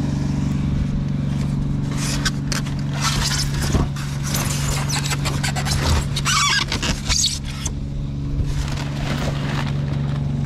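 Truck engine idling steadily, left running, with scraping and clattering of junk being handled in a trash pile from about two to eight seconds in and again near the end.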